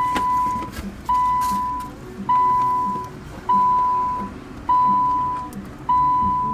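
Car warning chime dinging steadily, about once every 1.2 seconds: a single clear tone that strikes and fades each time, six times over, with a low hum underneath.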